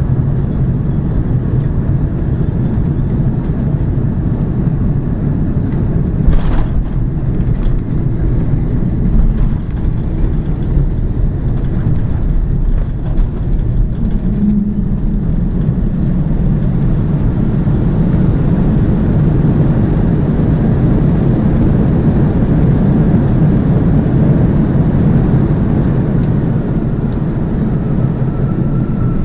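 Cabin noise of an Airbus A330 landing: a steady low roar of engines and rushing air, a sharp thump about six seconds in as the wheels touch down, then the roar swelling somewhat during the rollout.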